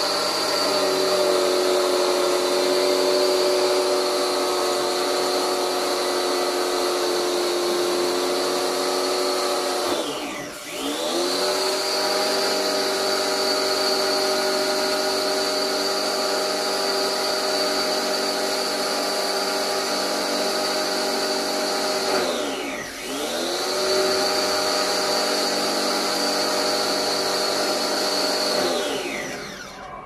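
Electric pressure washer's motor and pump running steadily while spraying down the air conditioner's coil and fan. Twice the motor winds down and speeds back up as the trigger is let go and squeezed again, and near the end it winds down and stops.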